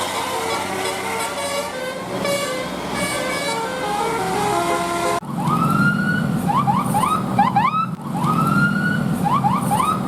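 A bus's multi-tone telolet horn playing a stepped tune. About five seconds in it cuts abruptly to a siren-style pattern, heard twice: one long rising whoop followed by a run of quick rising chirps.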